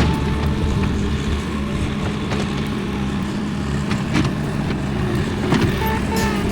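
Heavy-equipment engine running steadily, with scattered knocks and clanks.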